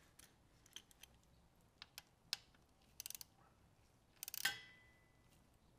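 Ratchet socket wrench clicking in short quick runs as it turns the oil drain plug back in, with scattered light metal clicks and taps. The loudest, about four and a half seconds in, is a sharp metallic clink that rings briefly.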